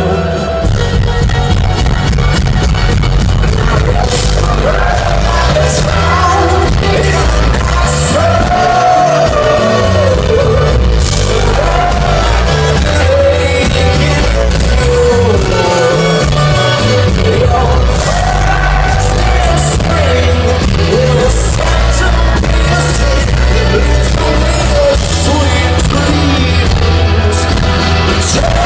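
Live rock band playing with a male lead vocalist singing, over a heavy bass and drums, as heard from the audience.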